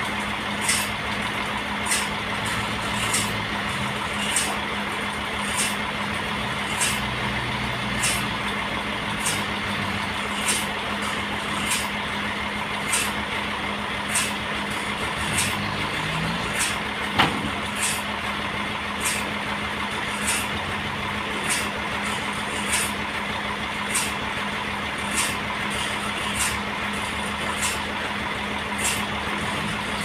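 Sawmill running steadily: a constant motor hum with a short hiss that repeats about every second, and a single sharp click a little past halfway.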